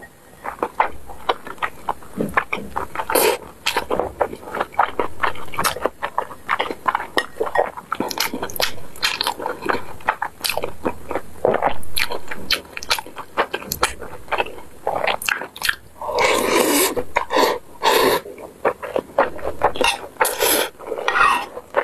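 Close-miked chewing and wet mouth smacking on mouthfuls of rice, many short sharp clicks in quick succession, with a metal spoon now and then scraping and clinking in the bowl.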